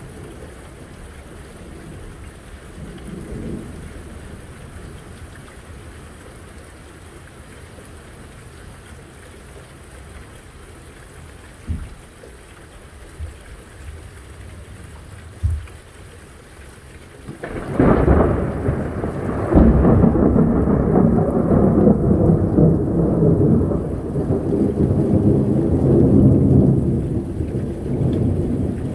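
Thunderstorm: steady rain with a few short sharp knocks, then, a little over halfway through, a loud crack of thunder that runs into a long rumble.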